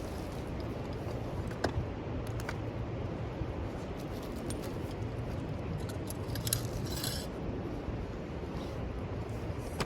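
Thin metal parts of a folding grill fire pit clinking and rattling as it is handled and assembled, in scattered light clicks with a busier cluster of clinks about two-thirds of the way through.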